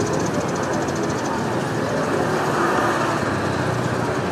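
Busy street traffic noise: motor vehicles running and passing in a steady, unbroken wash of engine and road sound.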